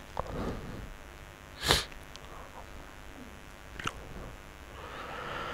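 Low room hiss with one quick sniff close to the microphone a little under two seconds in, a faint click about four seconds in, and a soft breath drawn in near the end.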